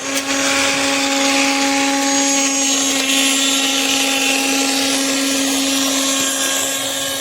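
MIAOKE portable USB-rechargeable mini blender's motor switching on and running steadily, its six blades spinning freely with a steady hum that eases slightly near the end.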